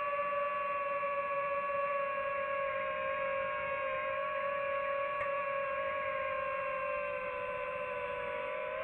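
DJI FPV quadcopter's electric motors and propellers whining at a steady pitch while the drone hovers almost still.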